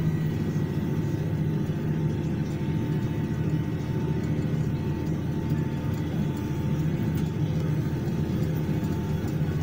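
Tractor engine running steadily under load, heard from inside the cab, while it pulls a rotary rake windrowing wheat straw. A faint steady whine sits above the engine hum.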